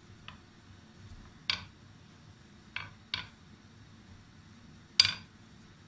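Long thin wooden rolling pin (oklava) clicking against a granite countertop while yufka dough is rolled out. There are five sharp knocks, the loudest near the end, over a faint low hum.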